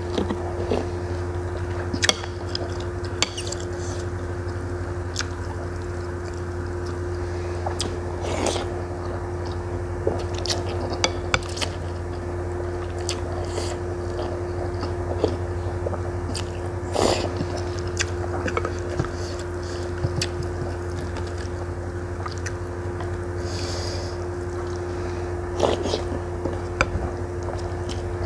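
Close-up eating sounds of a person eating bakso: slurping thin noodles and chewing meatballs, with wet mouth clicks and a few longer slurps. A steady low hum runs underneath.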